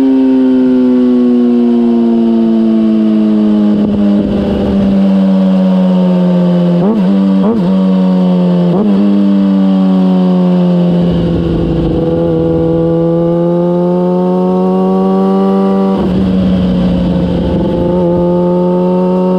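Kawasaki ZX-6R's inline-four engine running loud through a MIVV GP aftermarket exhaust while riding. The engine note slowly falls, breaks a few times in quick jerks of pitch near the middle, then holds fairly steady with a rougher, noisier edge for a few seconds.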